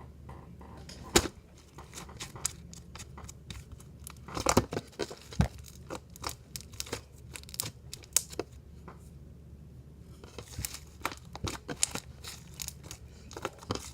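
Slime being stretched and squished by hand, with irregular sharp pops and clicks as air bubbles in it burst. The loudest pop comes about a second in, with a flurry of them around four to five seconds.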